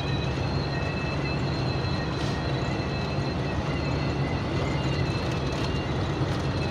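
Steady high whistle of wind leaking at the front of a moving vehicle's cab, several thin unwavering tones over the drone of road and engine noise. The driver places the leak around the windscreen.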